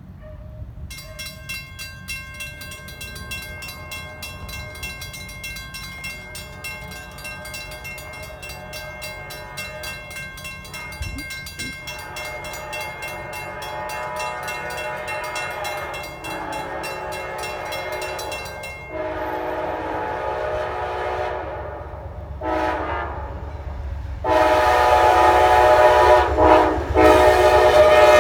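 Amtrak locomotive horn sounding the grade-crossing signal as the train approaches: long blasts, a short one, then a final long blast, growing much louder over the last few seconds. Before the horn, a crossing bell rings steadily, with rumble from the approaching train underneath.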